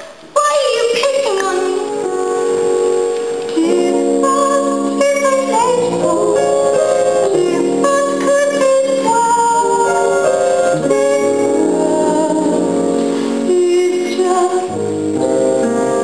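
Live stage-musical number: a voice singing a melody over sustained keyboard chords.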